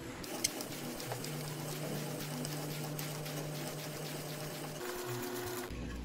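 A spade bit turned by a hand brace boring into a dry silver maple branch, giving a steady, rough rasping chatter as the bit scrapes out the wood. The rasping stops shortly before the end.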